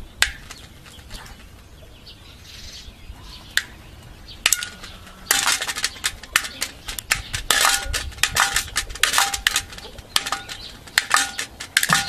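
Male pheasant pecking food from a metal bowl: quick clinking taps of the beak on the metal, each with a short ring. A few scattered taps at first, then a fast, dense run of pecks from about five seconds in.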